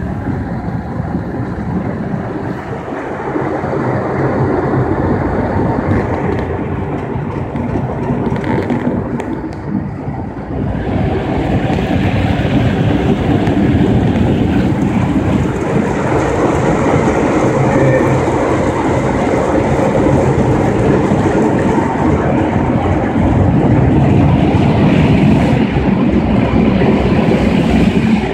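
Automatic car wash working over the car, heard from inside the cabin: water spraying and machinery running as a steady rushing noise. It gets louder about eleven seconds in and again near the end.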